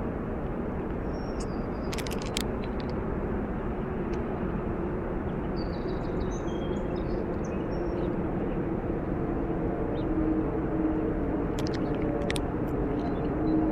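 Steady rush of distant highway traffic, with a low hollow hum like someone blowing into a bottle that comes and goes, plainest near the end. A few short high chirps sound above it.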